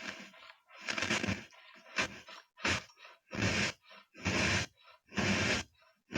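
Scraping strokes picked up through a piezo contact microphone, one after another at about one a second, a simulated brushing or scrubbing effect.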